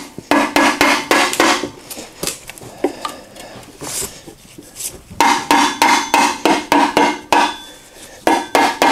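Hammer tapping a Polaris Sportsman 570 transaxle cover down onto its case, seating it on fresh gasket maker. Quick runs of taps, about four a second, each with a short metallic ring, come at the start, in the middle and near the end, with lighter scattered taps between.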